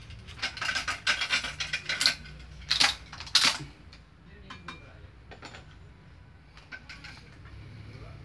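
Badminton racket string being pulled quickly through the frame's grommets and across the strings, a run of rasping zips over the first three and a half seconds, the last two the loudest. After that come a few light clicks as the string is worked at the stringing machine.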